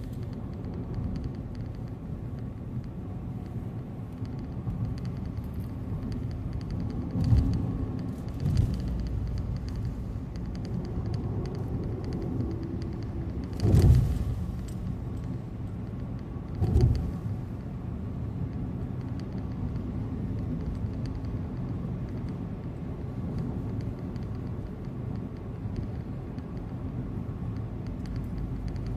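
A car driving on the road: a steady low rumble of tyres and engine, with a few brief louder swells, the strongest about halfway through.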